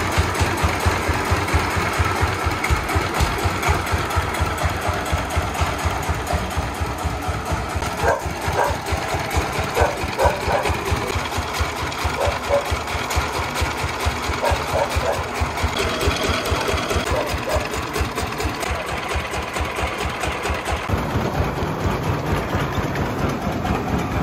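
The single-cylinder 24 hp diesel engine of a công nông three-wheeled farm truck running with a steady, rapid chugging. Its note grows deeper and fuller near the end.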